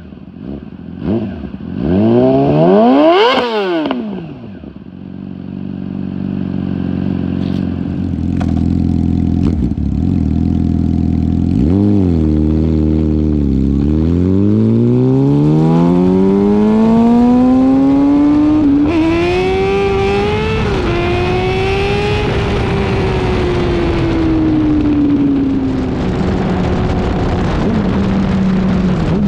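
2019 Yamaha R6's inline-four through an M4 Street Slayer slip-on exhaust with the muffler box (Y-pipe) deleted. It revs sharply up and back down at a standstill about two seconds in, then runs steadily. Later it accelerates hard, pitch climbing with a couple of upshifts, then eases off with the pitch falling and settles into a steady cruise.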